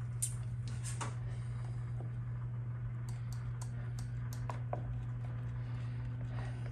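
Scattered light clicks and taps of hands handling the small wires and plastic connector of a lawn tractor's seat safety switch, over a steady low hum.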